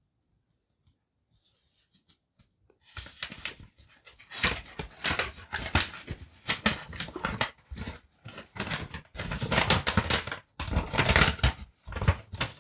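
Paper instruction manual being handled and its pages flipped and unfolded: irregular rustling and crinkling that starts about three seconds in.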